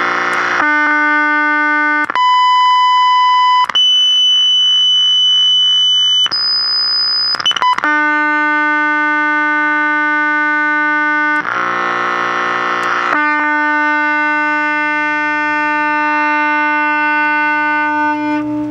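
Steady test tones from a signal generator playing through a vintage GE Hotpoint tube television's speaker, stepped through a low tone of about 300 Hz, then 1 kHz, 3 kHz and about 5 kHz, then back to the low tone. The tones come through rich in overtones, showing that the TV's sound section is working.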